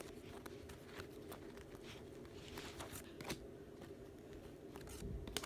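Faint, irregular ticks and soft rustles of trading cards being handled and flipped through by hand, over a steady low hum.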